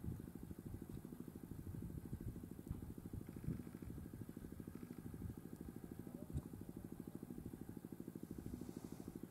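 A vehicle engine idling with a steady, rapid low throb, and a couple of soft knocks.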